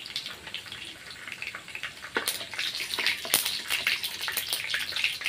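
Mustard and fenugreek seeds sizzling and popping in hot oil in a clay pot: a steady hiss with sharp crackles that come thicker after about two seconds as the seeds start to splutter in the tempering.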